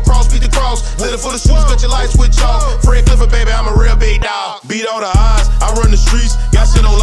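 Hip hop track: rapping over deep, regular bass hits and fast ticking hi-hats. The bass cuts out for about a second just past the middle, then comes back.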